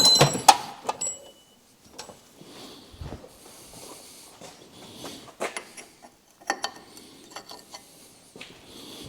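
Metal hand tools clinking and clanking, a quick run of sharp ringing clicks in the first second, then scattered faint knocks and taps.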